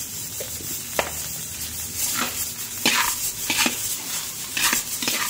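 Metal spatula scraping and stirring fried rice in a metal wok. A sharp click about a second in, then irregular scrapes of the spatula against the pan from about two seconds on.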